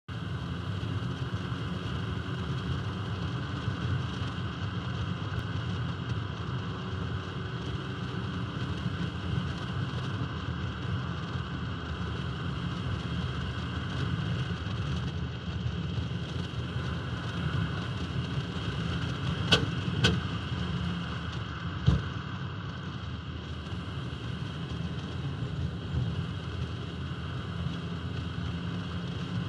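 A 1971 Alfa Romeo 1750 GTV driving along, heard from a camera mounted on the outside of its body: a steady rush of wind and tyre noise with the car's running underneath. Three sharp knocks come close together about two-thirds of the way through.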